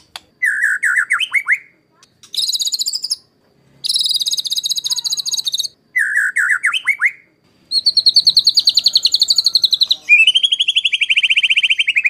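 White-rumped shama (murai batu) singing a series of short, rapid phrases with brief pauses between them, one phrase repeated about six seconds later. From about eight seconds in it runs into long, fast trills, the harsh rapid-fire 'tembakan kasar' bursts that bird keepers use as a training song.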